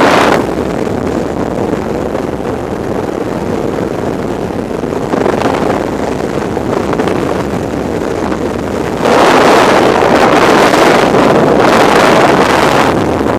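Freefall wind rushing loudly over a skydiver's helmet-mounted camera microphone. It eases slightly about half a second in and grows louder again about nine seconds in.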